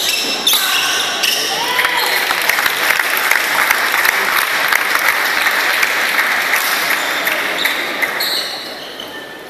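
Crowd applauding and cheering, a dense clatter of clapping that dies away near the end. Brief shouts or shoe squeaks come just before it.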